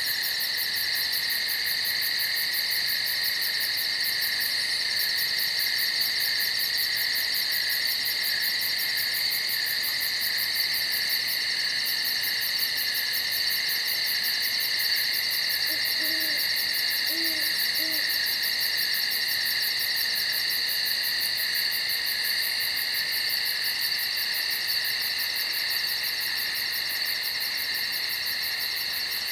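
Steady chorus of night insects, with a fast pulsing trill high above it. An owl gives a few short, low hoots about halfway through.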